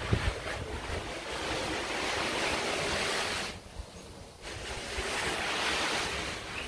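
Garden hose spray nozzle jetting water, a steady hiss of spray that drops out for about a second midway and then resumes.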